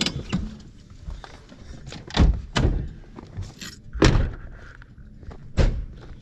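Five sharp thunks a second or two apart, as people climb out of a GMC pickup's cab and its door is shut.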